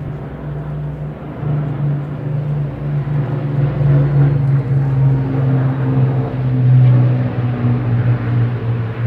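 Formation of propeller aircraft flying low overhead, a steady deep engine drone that grows louder and peaks about two-thirds of the way through.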